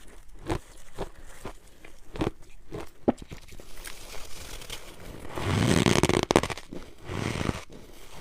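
Snow crunching: a string of separate short crunches, then a longer, louder stretch of dense crunching about five and a half seconds in.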